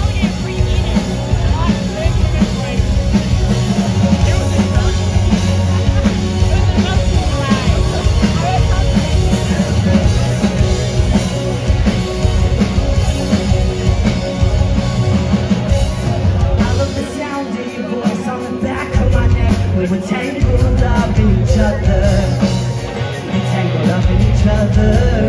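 A rock band playing live and loud, with drums, guitars and sung vocals. Partway through, the bass and drums drop out for a couple of seconds, then come back in.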